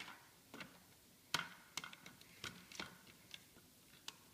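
LEGO plastic pieces clicking and knocking as the model is handled and a wall section is fitted: about eight short, irregular clicks.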